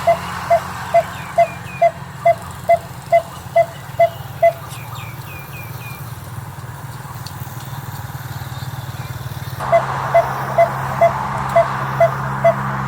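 Coppersmith barbet calling a steady run of single repeated notes, about two and a half a second. The notes stop about four and a half seconds in and start again near ten seconds, with a few faint high chirps of other birds in the gap.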